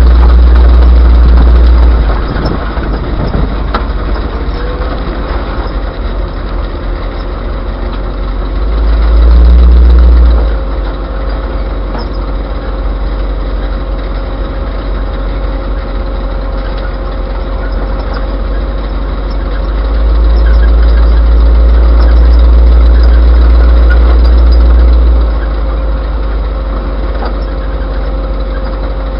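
A 1936 GMC hot rod tow truck driving slowly, recorded by its own dash camera: steady engine and road noise. Heavy low rumbles swell up three times, in the first two seconds, around nine to ten seconds in, and from about twenty to twenty-five seconds in. A thin steady whine sits under it from about four seconds in.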